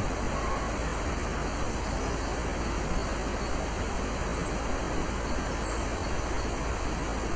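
A steady rushing noise that stays even throughout, with no clear birdsong standing out above it.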